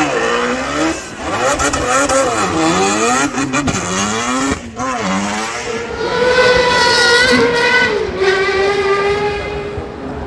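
Racing car engine revving hard, its pitch swinging up and down repeatedly with brief cuts. It then holds at high, steady revs, dropping a step about three-quarters of the way through.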